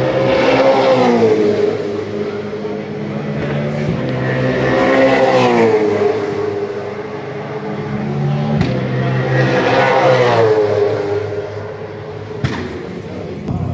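Supercars V8 race cars passing at speed on the main straight, three times: each engine note swells and then drops in pitch as the car goes by. A steady low engine drone continues underneath.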